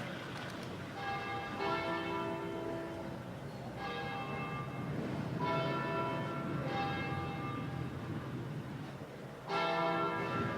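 Bells ringing: fresh strikes come every one to three seconds, and each rings on and overlaps the next.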